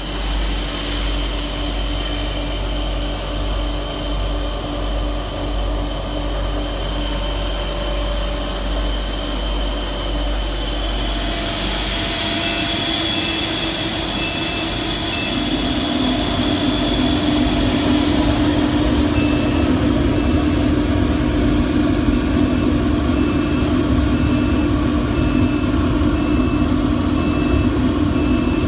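Recycling separator machine running steadily as it sorts copper from PVC regrind: a continuous machine hum and rush with a steady low tone. It gets louder and fuller around the middle, where a faint high tone also starts pulsing about twice a second.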